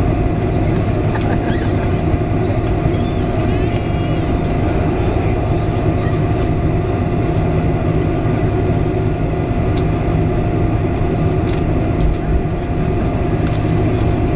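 Steady cabin drone inside a Boeing 747-400 taxiing after landing: a low engine hum with a steady mid-pitched tone running over it.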